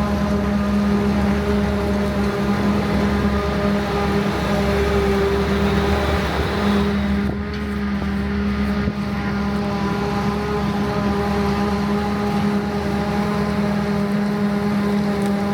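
Heavy diesel farm machinery running steadily under load, a constant droning hum with a brief dip about seven seconds in.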